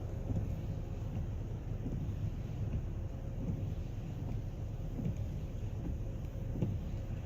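Wind buffeting the microphone in a snowstorm: a steady low rumble with irregular gusts, over a faint steady hum.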